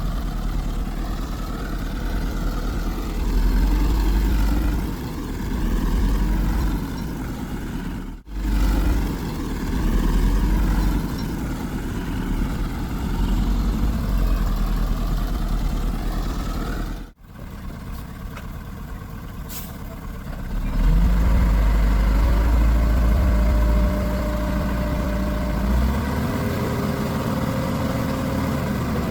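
Diesel engines of heavy earthmoving machinery running and revving under load: a deep rumble whose pitch rises and falls. It is broken by two abrupt cuts, about 8 and 17 seconds in, and grows louder for a few seconds near the end.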